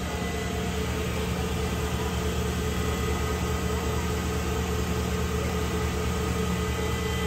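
2020 Omni Turn GT-75 gang-tool CNC turning center running through its program cycle: a steady machine hum with a thin, high whine over it.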